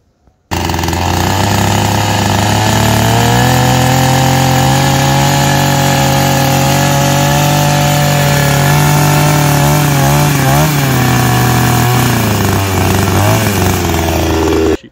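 Chainsaw running at high revs while cutting a tree root stump; its pitch sags and wavers a few times in the second half as the chain bites into the wood. It starts and cuts off abruptly.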